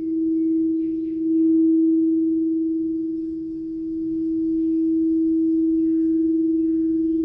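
Frosted quartz crystal singing bowl sung by circling a mallet around its rim: one steady pure tone that swells about a second and a half in, eases, then swells again.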